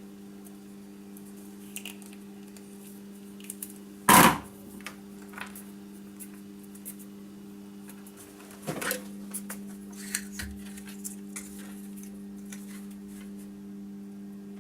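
Small metal tools and parts being handled at a workbench during soldering work, with light clicks and taps over a steady low hum, a loud sharp clack about four seconds in and another near nine seconds.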